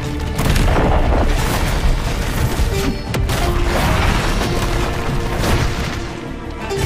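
Dramatic soundtrack music layered with heavy booms and rumbling crashes of shattering, falling rock, with several sharp impacts. The sound eases off near the end.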